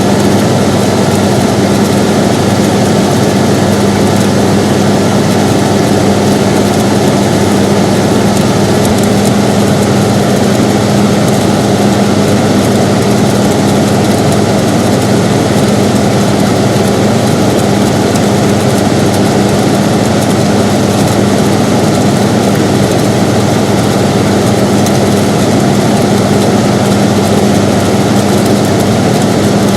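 Air conditioner running steadily: an even rush of air with a constant low hum.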